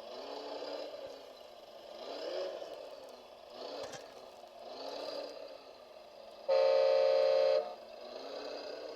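Electric motors of radio-controlled construction machines whining up and down in pitch, again and again every second or two, with a loud horn blast of about a second, held at one steady pitch, about six and a half seconds in.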